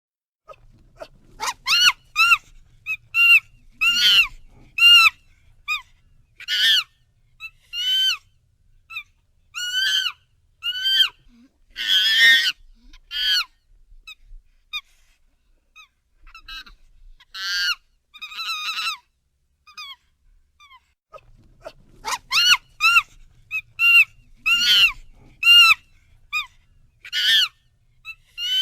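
Chimpanzee screaming: a rapid series of short, shrill, rising-and-falling screams. They thin out to a few quieter calls about halfway through, then resume in quick clusters.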